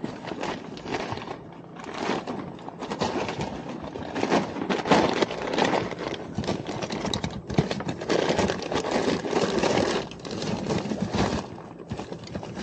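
Hand rummaging through a cluttered tool bag: tools and loose bits clattering and rustling irregularly as something is searched for.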